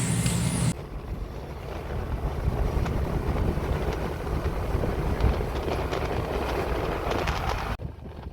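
Wind buffeting the microphone over a steady low rumble, which cuts off abruptly near the end. A brief pitched hum sounds at the very start.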